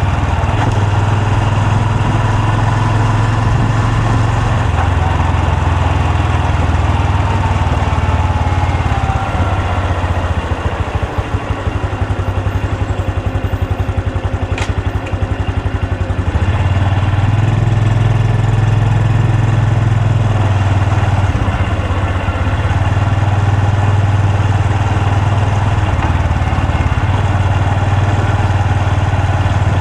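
Honda Super Cub C125's single-cylinder engine and exhaust running under way. In the middle it drops to a quieter, lower note for several seconds, then picks up again.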